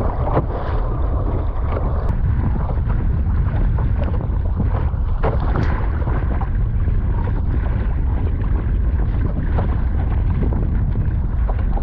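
Wind buffeting the microphone as a loud, steady low rumble, over the wash of choppy water against an Epic V7 surfski's hull and irregular splashes, roughly once a second, of the paddle blades dipping in.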